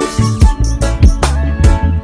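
Background music with a steady beat: a drum hit about every 0.4 s over bass and melody, in an Afrobeat-like groove.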